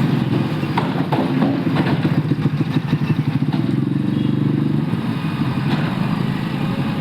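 A bulldozer's diesel engine runs with a rapid, pulsing rumble during demolition, with a few knocks and clatters of debris about a second in and again near the end.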